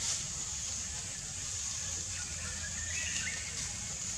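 Outdoor forest ambience dominated by a steady, high-pitched insect drone, with a brief high chirping call about three seconds in.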